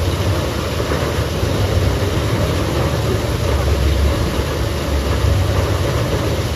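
A steady low rumble with an even hiss over it, holding at much the same level throughout.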